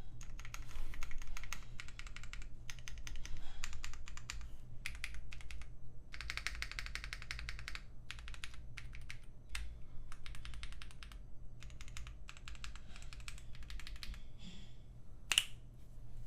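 Typing on a Bakeneko 65 CNC mechanical keyboard: quick runs of key clicks in bursts with short pauses between them, and one louder, ringing keystroke near the end.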